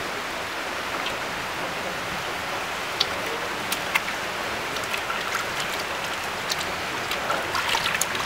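Water running steadily from a hose into a plastic basin while hands swish through it, whipping up soapy water. Small splashes and drips tick over the running water, more of them near the end.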